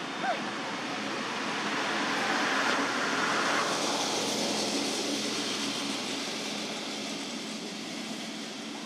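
Steady rushing outdoor background noise that swells about two to four seconds in and then eases off, with one brief high squeak right at the start.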